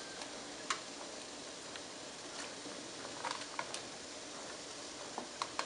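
A plastic spoon clicking and tapping against an aluminium steamer pot and its perforated tray while steamed pumpkin pieces are scooped out: scattered light clicks, a few in quick succession in the middle and again near the end, over a steady faint hiss.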